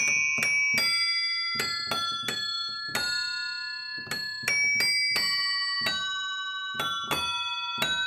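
Homemade keyboard instrument with a carriage of tuned metal bells, its hammers striking the bells as chords and a melody are played on the keys, about two strokes a second. Each note rings on with bright, shrill overtones over a soft knock of the key action.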